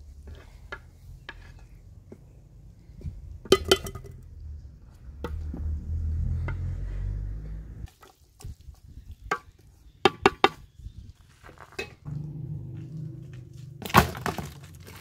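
Raw chopped green beans, chicken and vegetables being mixed by hand and with a wooden spoon in a large metal cooking pot, with scattered knocks and clinks against the pot. A low rumble swells for a few seconds in the middle.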